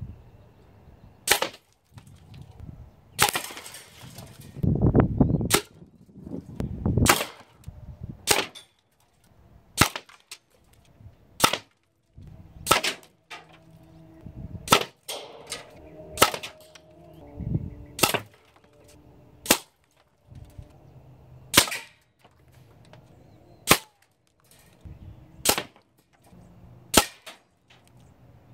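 A string of more than a dozen air rifle shots from an FX Crown PCP air rifle, pellets smacking into a cinder block target, one sharp crack every second and a half to two seconds.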